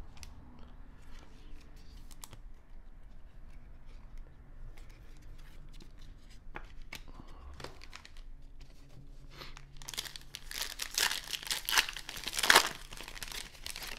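A foil trading-card pack being torn open by hand, crinkling and tearing for about three seconds starting around ten seconds in, loudest near the end. Before that there are only faint scattered clicks of cards being handled.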